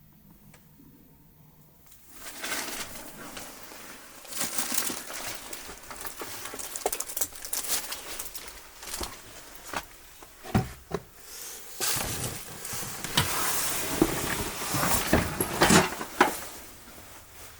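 Near quiet at first, then from about two seconds in, irregular rustling, scuffing and small knocks of someone moving through a cluttered room and handling things.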